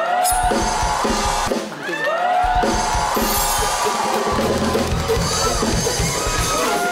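Music with drums: pitched melodic phrases over a drum kit with deep bass-drum hits.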